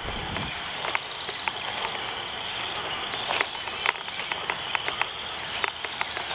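Flooded bayou rushing steadily under a constant high insect drone, with scattered sharp clicks and ticks and a brief low thump at the start.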